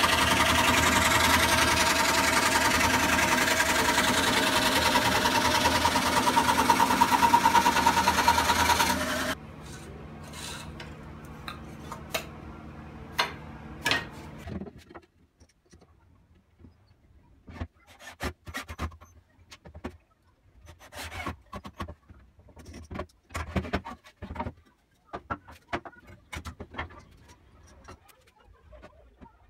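Drill-powered homemade wooden scroll saw running and cutting plywood: a loud, steady mechanical buzz for about nine seconds, then a sudden drop to a quieter steady hum that stops about fifteen seconds in. After that, scattered light knocks and clicks of wood and tools being handled on a workbench.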